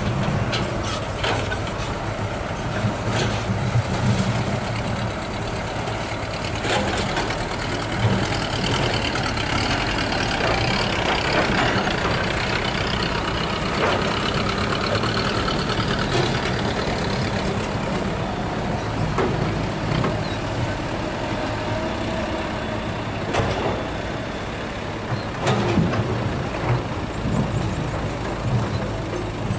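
Diesel engines of laden light dump trucks pulling away along a dirt haul road, a steady low engine drone with a few sharp knocks scattered through it.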